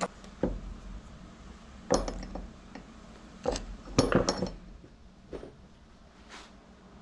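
Metal parts knocking and clinking on a workbench as an aluminium clamp and a Linak electric linear actuator are handled and set down on an aluminium plate among hand tools. There are about eight separate knocks and clinks, busiest about four seconds in.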